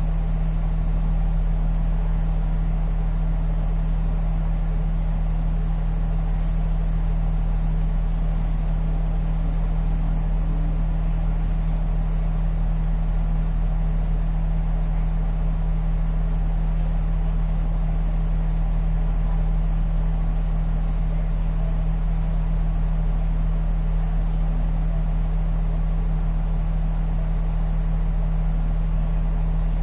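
City bus engine idling while the bus stands still, heard from inside the cabin as a steady low hum.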